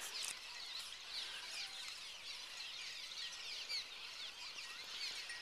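A colony of swallows flying around their nests and calling: many short, high, falling chirps overlapping in a continuous chatter.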